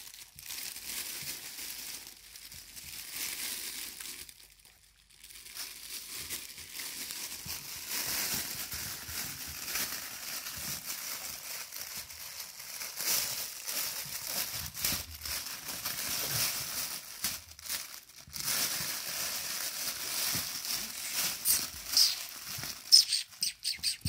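Crinkling and rustling of a crinkle-fabric cat tunnel, with claws scratching, as kittens scramble in and around it and over a rubber balance cushion. A short lull about four seconds in, busier from about eight seconds on, and a few sharper, louder crackles near the end.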